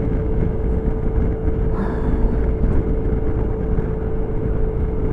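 Suzuki Burgman scooter cruising at a steady speed: a steady engine hum under low wind rumble on the microphone.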